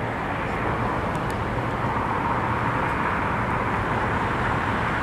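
Steady rushing noise of a passing vehicle or traffic, slowly growing a little louder.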